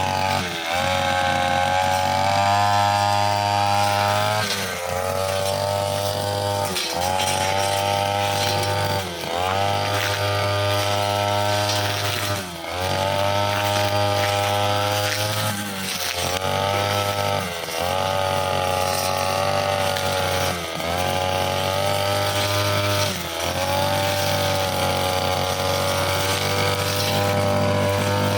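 Brushcutter engine running at high revs with a metal blade cutting grass and small saplings. The engine note dips briefly and recovers about every two to three seconds as the blade takes the load.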